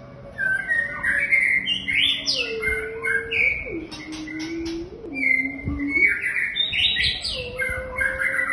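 White-rumped shama singing: a rich run of varied whistled phrases with quick rising and falling notes, pausing briefly around the middle before a second run. A fainter, lower tone steps up and down in pitch beneath the song.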